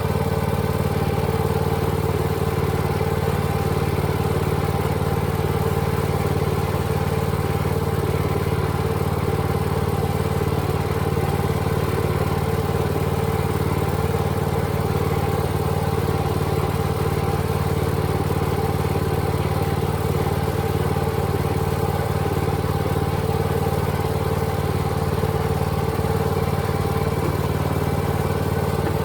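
An engine running steadily at constant speed, its low hum unchanging throughout.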